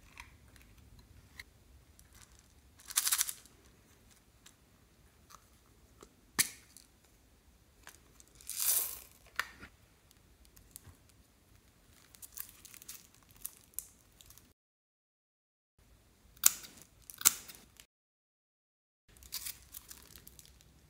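Sparse handling noises: short rustles and scrapes, sharp clicks and taps, and crinkling from a plastic makeup compact and plastic piping bags of slime being worked over a glass dish. The loudest sounds are two brief scraping bursts and a few sharp clicks. The sound cuts out completely twice, for about a second each time.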